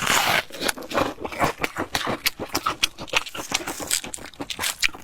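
Close-miked chewing of crispy fried bread, a rapid irregular run of crunches and mouth clicks.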